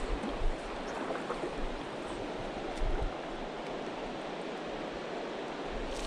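Mountain stream running over shallow rocky riffles: a steady rush of water, with a couple of brief low bumps.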